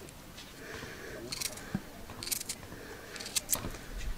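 A small hand-held blade scraping and cutting a raw chikanda orchid tuber close by, in short scratchy strokes about once a second.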